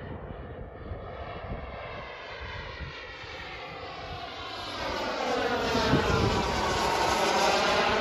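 Tomahawk L-39 radio-controlled model jet flying past, its turbine making a rushing noise with a thin high whine. It grows louder from about five seconds in as it comes close.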